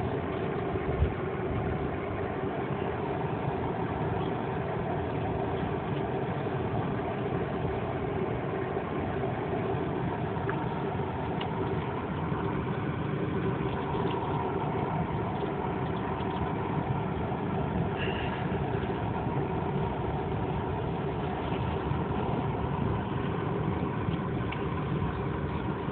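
Car engine and road noise heard from inside the cabin of a moving car: a steady low drone with a faint hum, with one light knock about a second in.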